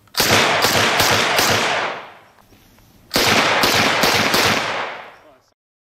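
Zastava M56 submachine gun in 7.62×25 mm Tokarev firing two short bursts of full-automatic fire, each about a second and a half long, a second or so apart. Each burst trails off in echo.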